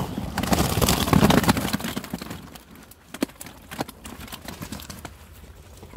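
Carp flapping and slapping in a wet weigh sling as a keepnet is tipped into it: a burst of rapid slaps and rustling in the first two seconds, then a few single knocks.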